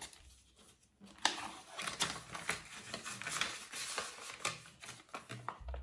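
Dollar bills and a paper envelope rustling and crinkling as the bills are pushed into the envelope: a run of small crackles and taps starting about a second in.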